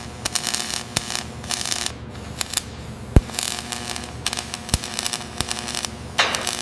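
MIG welding arc crackling and hissing in stretches that start and stop, with a few sharp snaps of spatter. The loudest snap comes about three seconds in.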